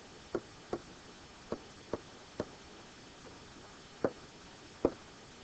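A pen tapping and knocking on the writing surface of an interactive whiteboard as handwriting is put down: about seven separate sharp taps at uneven intervals.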